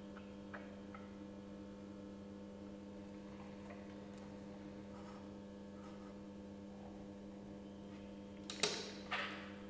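Steady low electrical hum with a few faint ticks, then near the end a sharp click and two short scraping rustles as a drawing compass is worked on a sheet of paper on a table.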